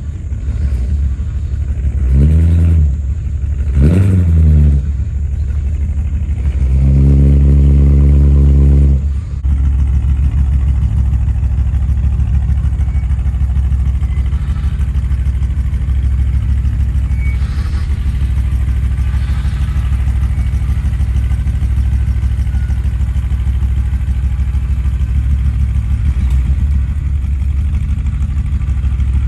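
1976 GMC motorhome's Oldsmobile 455 V8 running on a new fuel pump and filter. It is blipped a few times, held at raised revs for about two seconds, then drops back to a steady idle.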